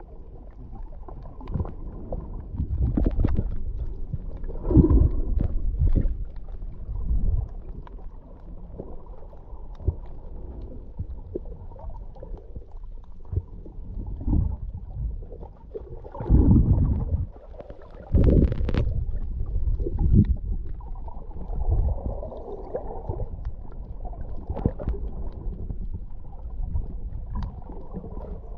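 Muffled underwater water noise picked up by an action camera held below the surface: low rumbling surges of moving water, swelling loudest about five seconds in and again around sixteen to eighteen seconds, with scattered small clicks and pops.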